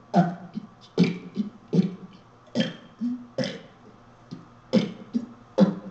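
A person burping letters of the alphabet one after another through a karaoke machine: about seven short, voiced belches in a row, one roughly every 0.8 s.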